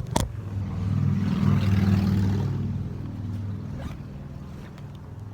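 A motor engine that grows louder to a peak about two seconds in and then fades away, after two sharp knocks at the start.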